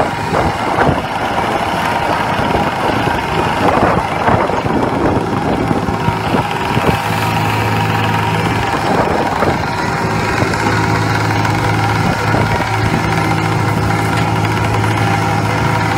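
A fishing boat's engine running steadily with a low hum. Scattered knocks and clatter come through it during the first half.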